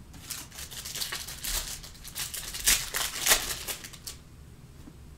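Panini Mosaic trading cards and foil packs being handled: dry, scratchy rustling and sliding of cards against each other as a stack is flipped through, in a run of short strokes that stops about four seconds in.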